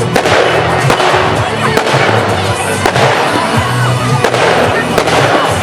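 Professional firework display: shells bursting and crackling in quick succession, over music with a steady bass line.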